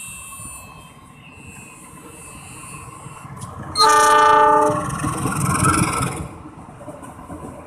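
Diesel locomotive horn sounding once for about a second, a little under four seconds in. It is followed by the rumble of the train running past, which fades about two seconds later.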